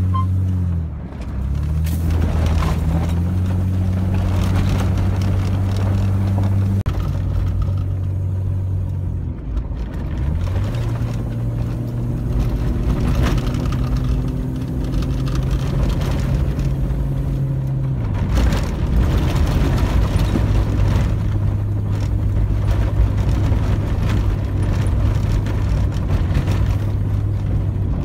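Toyota Land Cruiser engine running steadily from inside the cab on a rough dirt road, its pitch shifting down and back up a few times as the speed changes, over constant road rumble and rattling from the gravel track.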